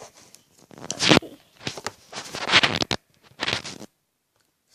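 Slime being squished and kneaded by hand close to the microphone, coming in irregular bursts of wet, squelching noise, with a brief gap near the end.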